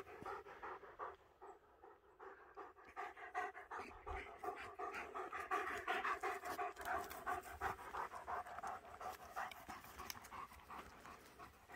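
German shepherd dog panting in quick, even breaths, sparse at first and steady from about three seconds in.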